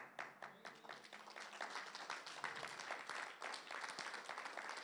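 Congregation applauding: many hands clapping together, starting suddenly and keeping on steadily.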